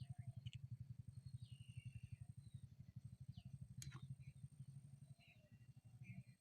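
Faint outdoor ambience: birds chirping briefly now and then over a low, fast-pulsing hum and a thin steady high whine, with one sharp click about four seconds in.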